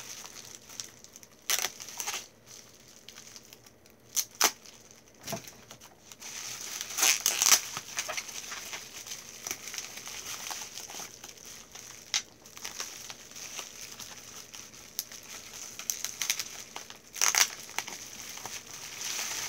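Packaging crinkling and rustling in irregular bursts as a big bag of bottles is opened and rummaged through. It is loudest about seven seconds in and again near the end, with a few sharp crackles between.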